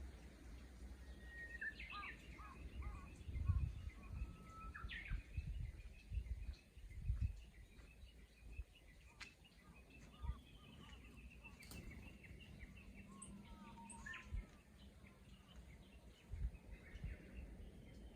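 Japanese bush warblers (uguisu) singing, several birds overlapping: long held whistles running into quick warbled flourishes, with other chirps between. Irregular low rumbles sit under the song.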